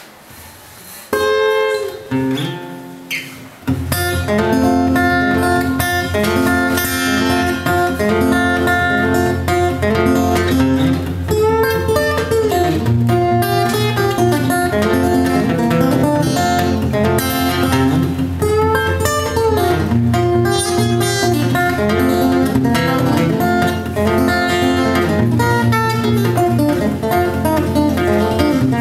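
Solo steel-string acoustic guitar played fingerstyle with a capo: a few separate opening notes, then, from about four seconds in, continuous picking of a melody over a steady bass line.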